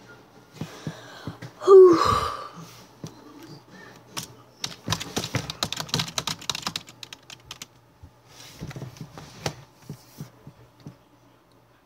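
Handling noise close to the microphone: a dense run of sharp taps and clicks, like fingers tapping on the recording device, with rustling. About two seconds in comes a short, loud sound that rises in pitch, the loudest thing here.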